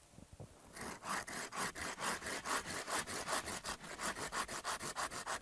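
Hand saw cutting a shallow kerf into a quartered piece of willow branch, in quick, even back-and-forth strokes that start about a second in.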